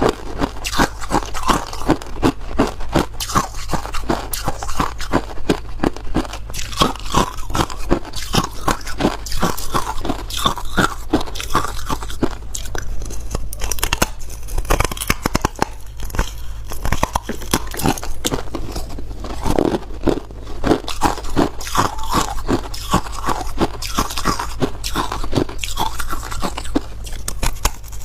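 Ice being bitten and chewed close to the microphone: a steady run of crunches, several a second, as the pieces break between the teeth.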